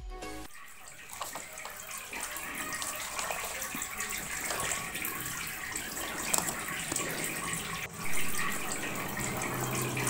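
Small tabletop fountain running: a submersible pump forces water out through needle-pricked holes in a plastic bottle, and it splashes steadily back into the water of a glass bowl. It is briefly louder about eight seconds in.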